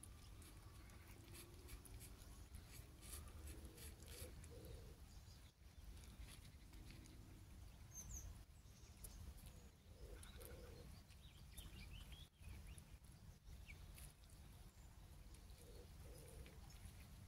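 Near silence: faint soft clicks of kittens chewing and eating, scattered unevenly over a low steady rumble.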